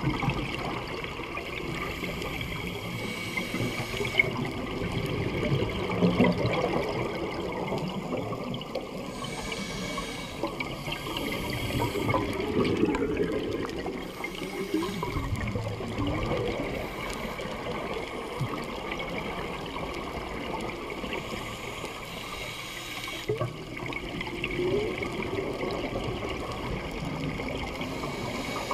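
Scuba divers' exhaled bubbles gurgling and burbling from their regulators, heard underwater through a camera housing, swelling in bursts every few seconds.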